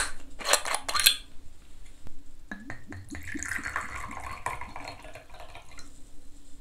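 Screw cap of a green glass soju bottle being twisted open with a few sharp crackling clicks as the seal breaks, then soju poured from the bottle into a small glass shot glass, a liquid splashing and gurgling for about two seconds.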